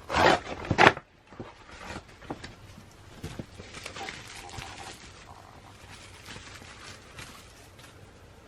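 Packaging around a photo card being handled and opened: a few loud rustles in the first second, then quieter scattered rustling and light clicks.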